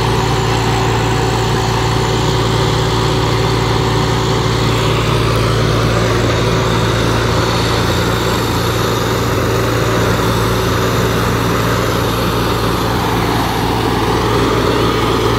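Diesel tractor engines running steadily with an even, continuous hum.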